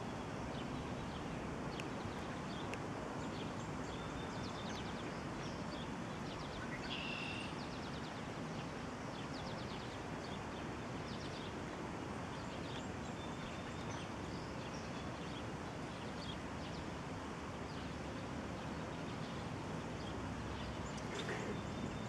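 Outdoor natural ambience: a steady, even background noise with short, high bird chirps and trills scattered through it, a clearer one about seven seconds in.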